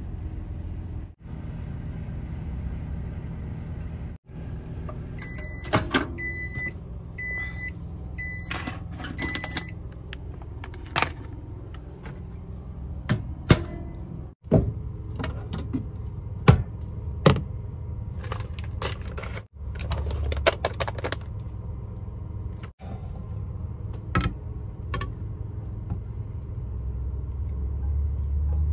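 Kitchen sounds over a steady low hum: a string of short high beeps from a microwave keypad, then sharp clinks and knocks of a spatula and pan.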